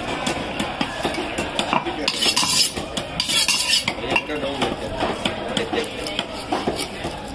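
Steel knife cutting a whole fish on a wooden chopping block scattered with crushed ice: repeated small knocks, clicks and scrapes of the blade against flesh, wood and ice, with two longer rasping scrapes about two and three seconds in.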